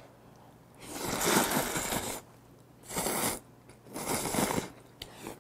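A man slurping creamy instant noodles off chopsticks in three noisy pulls: a long one about a second in, then two shorter ones.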